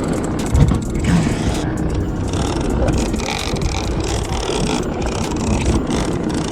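Steady low rumble of an offshore fishing boat, with wind buffeting the microphone and occasional knocks.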